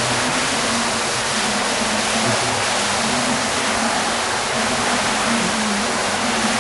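Steady rush of running water, an even splashing noise like water pouring into a pond or tank, with a faint low hum under it.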